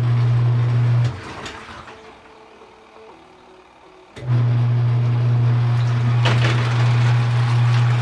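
Giantex twin-tub portable washer's wash motor running with a steady hum as it agitates the load. It stops about a second in, as the wash cycle pauses to reverse, then starts again about three seconds later. A click comes around six seconds in, followed by louder water churning.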